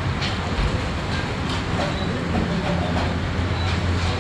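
Steady low rumble and hiss of machinery-like background noise, with a few faint knocks.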